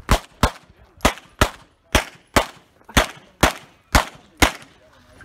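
Ten pistol shots fired in five quick pairs, one pair about every second. These are double taps, two shots per target, on a timed competition stage.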